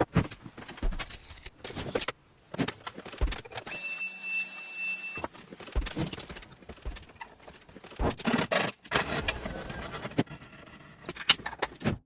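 Tools and workpieces being handled: a run of sharp knocks, clicks and scrapes, with a steady high whine for about a second and a half near the middle.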